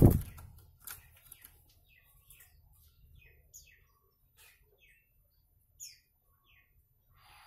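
Sooty-headed bulbul in a cage: a loud, brief flutter of wings right at the start, then a scattered string of short chirps that fall in pitch.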